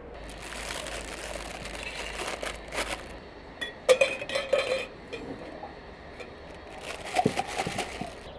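A metal spoon clinking and scraping inside a mayonnaise jar, loudest about four seconds in, with a plastic bag crinkling as it is filled near the end.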